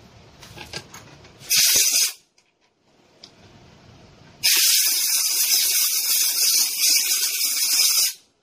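Pressurised gas hissing hard in two bursts: a short one about a second and a half in, then a long steady one lasting about three and a half seconds.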